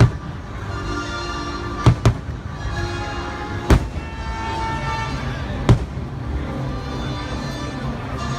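Aerial fireworks bursting during a fireworks show: five sharp bangs, two of them close together about two seconds in, over continuous show music.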